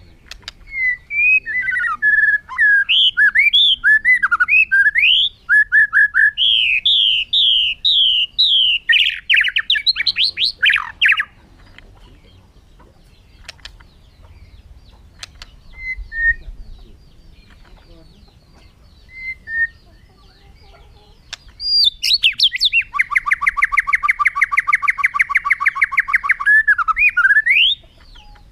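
White-rumped shama (murai batu) singing: a run of varied, sweeping whistled phrases for about ten seconds, then a pause with a few faint short notes, then a long, fast, even trill of repeated notes for about five seconds near the end.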